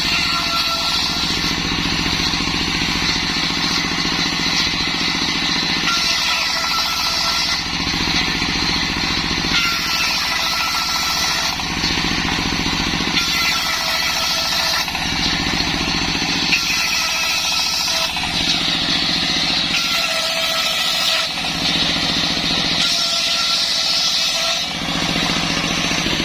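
Circular saw ripping waru wood for laths: a loud, continuous machine noise. Every few seconds it alternates between a deeper cutting noise and a higher ringing whine from the spinning blade, as piece after piece is fed through.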